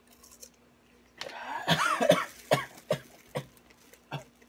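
Coughing from the burn of a just-eaten ghost pepper: a loud, rough coughing fit about a second in, then four short single coughs.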